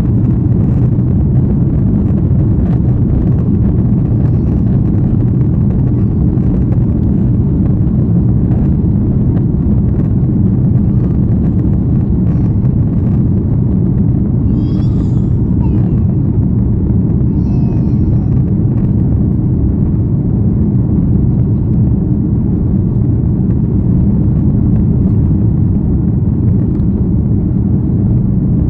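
Jet airliner's engines at takeoff thrust during the takeoff roll, heard from inside the cabin: a loud, steady, deep rumble mixed with runway noise.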